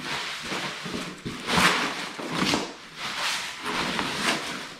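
Packaging and parts being handled while a box is searched: a few irregular scraping, rustling noises in a row.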